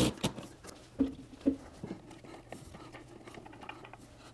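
Cordless ratchet being lifted off a hose clamp and handled among the engine bay's metal parts: the tail of a motor burst right at the start, then two sharp knocks about a second and a second and a half in, followed by a few light clicks.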